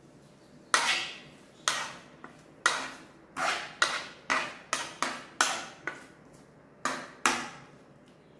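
Metal spoon knocking and scraping against a nonstick frying pan as sliced snake gourd is stirred: about a dozen sharp knocks at an uneven pace, each ringing briefly, starting about a second in.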